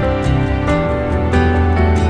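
Soft, gentle background music with held notes over a steady bass.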